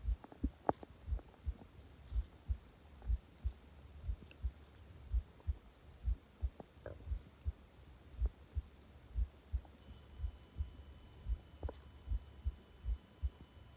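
Close recording against a person's belly: soft, regular low thuds about once a second, often in pairs like a heartbeat pulse, with a couple of brief, faint stomach gurgles around seven and twelve seconds in.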